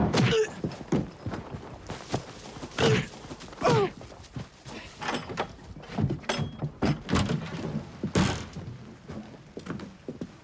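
A harnessed horse's hooves knocking and shifting on leaf-covered ground, among a run of irregular thuds and knocks.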